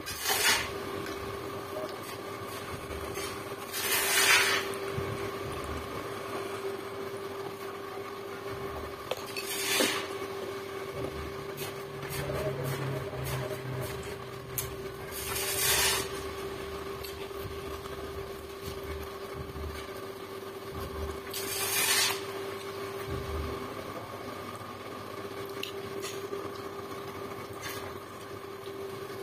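A person eating by hand: five short crunchy rasps, several seconds apart, as crisp fried food is bitten and chewed, over a steady hum.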